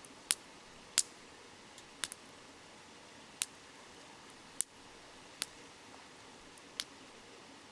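Wood campfire crackling: sharp, irregular pops of burning wood, roughly one a second, over the faint steady hiss of a flowing river.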